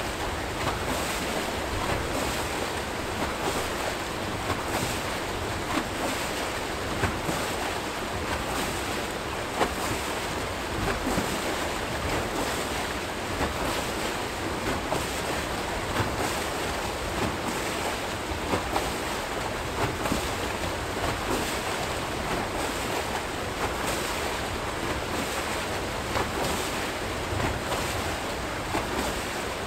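Archimedes screw hydro turbine turning in the river: steady rushing and churning water with frequent small splashes.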